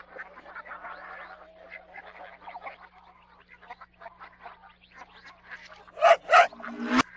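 Sound effects played backwards: a busy patter of short animal-like calls, then two loud calls about six seconds in and a sharp click just before the end.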